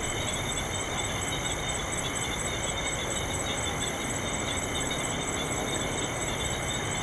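Outdoor scrubland ambience: insects trilling steadily, one high chirp pulsing about four times a second, over a low steady rumble.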